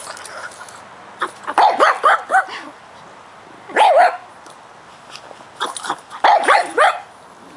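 Pug barking at a bug on the ground, in short falling barks. A quick run of barks comes about a second in, a single bark near four seconds, and another run near the end.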